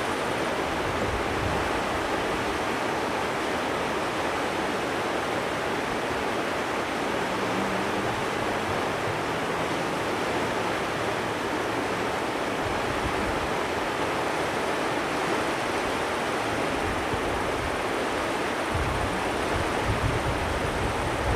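Steady rushing of river water, with wind on the microphone that gusts in low rumbles near the end.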